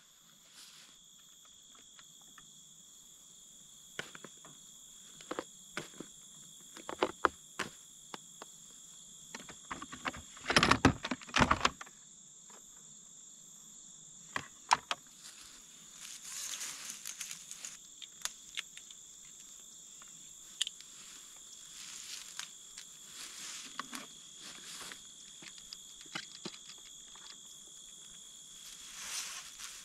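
Steady high insect song, like crickets in the grass, with scattered clicks, knocks and rattles of wiring and hose fittings being handled; the loudest run of knocks comes about ten to twelve seconds in.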